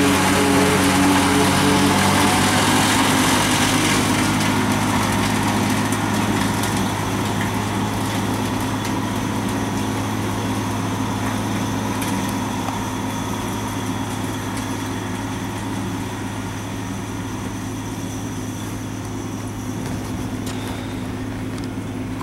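Tractor engine running steadily, heard from inside the cab. A tractor-pulled forage harvester chopping corn runs nearby and fades gradually as it moves away.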